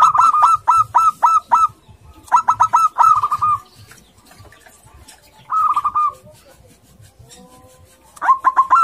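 Zebra dove cooing its staccato call: quick runs of short, clipped coos, about four or five a second. There are three runs in the first six seconds, then a lull, and a new run starts near the end.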